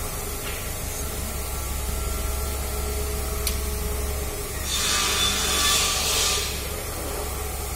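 A hand rubbing across a hardwood deck board for about a second and a half, a little past midway, over a steady low hum.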